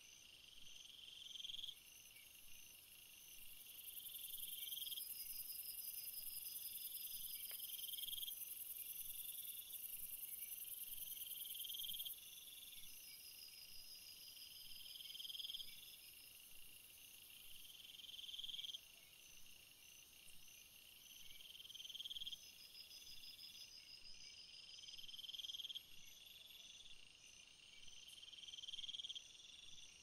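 Chorus of crickets and other field insects, chirping and trilling steadily. One insect's trill swells and breaks off about every three to four seconds, and a very high-pitched buzz runs over it for much of the time.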